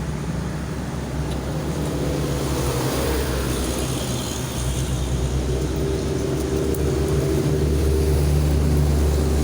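Motorcycle engine running steadily, its sound growing louder in steps about halfway through and again near the end, as if revved up a little.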